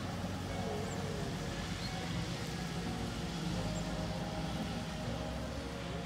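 Steady hum of distant city traffic, with a couple of faint high chirps.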